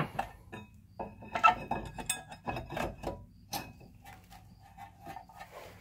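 Scattered metallic clinks and taps as a brake caliper is slid over a new brake rotor and set into position by hand, the sharpest clink about one and a half seconds in.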